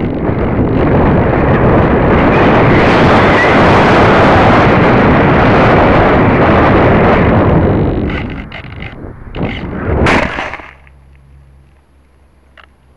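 Wind rushing loudly over the microphone of a model plane's onboard camera as it dives and skims low over a field. About eight seconds in it breaks into scraping bursts of the plane hitting and ploughing through grass in a nose-dive landing, and a little after ten seconds it stops suddenly, leaving only a faint low hum.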